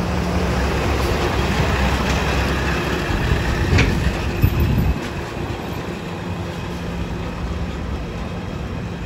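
Cummins N14 inline-six diesel of a truck loaded with sand, running steadily under way. The engine sound grows a little louder, a click comes about four seconds in, and the sound then drops sharply about five seconds in.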